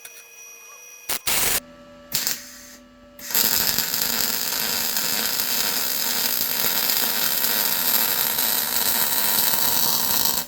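MIG welder arc on 3/16-inch steel angle iron: a few short bursts in the first two seconds, then a steady hissing arc of a continuous weld bead from about three seconds in.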